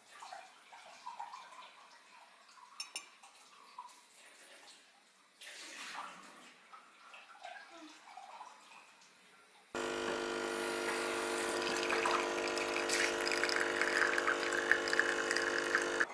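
A few faint clicks of a knife on a plate, then about ten seconds in an espresso machine starts suddenly, its pump humming steadily as coffee runs into the cup.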